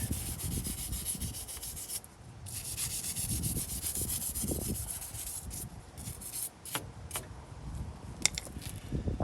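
A stiff brush scrubbing loose rust and dirt out of the threads and axle splines where the new front wheel hub assembly mounts, in quick back-and-forth strokes, with a short pause about two seconds in and a few light clicks near the end.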